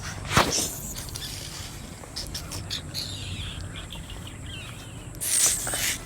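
Handling noise from small toy pieces being moved about: a sharp click about half a second in, scattered light clicks and rustles, and a short louder rustle near the end.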